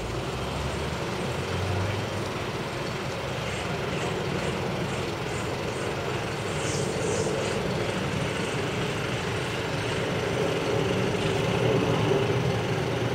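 Boeing 747 jumbo jet passing overhead: a steady, low jet rumble that grows slowly louder towards the end.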